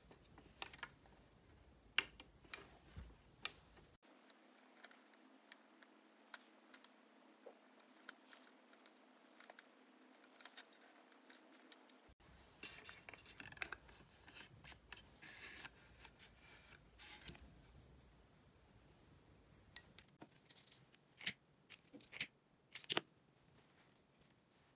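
Hand-stitching a leather grip onto a steel needle-nose pliers handle: scattered light clicks and taps of needle, thread and metal, with a spell of scratchy rustling as thread is drawn through the leather about halfway through, and a few louder clicks near the end.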